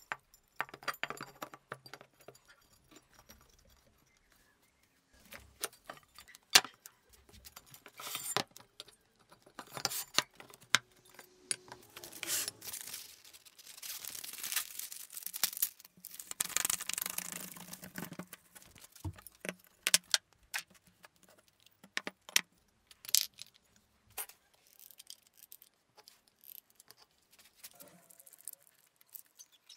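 Workshop handling sounds: irregular metal clinks and knocks as microwave-oven transformer cores are set into a steel box. In the middle, several seconds of plastic release film rustling as it is handled.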